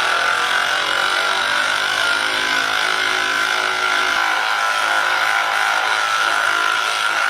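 Handheld electric massage device running with a steady buzz.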